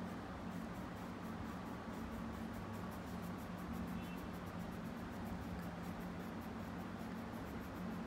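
Brown colour pencil scribbling on paper in rapid short strokes, filling in a small shape, over a steady low hum.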